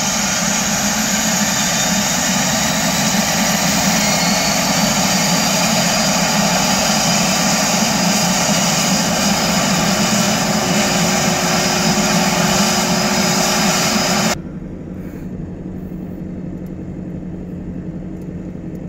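The twin turboprop engines of a de Havilland Canada DHC-6 Twin Otter run loud and steady with the plane on the ground before take-off, with a faint high turbine whine over the propeller noise. About fourteen seconds in the sound cuts off abruptly to a much quieter steady rumble.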